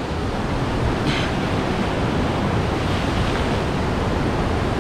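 Sea surf washing steadily against the shore, with a brief hiss about a second in.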